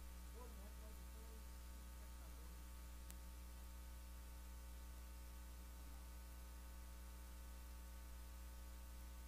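Near silence: a steady low electrical mains hum with faint hiss, and one faint click about three seconds in.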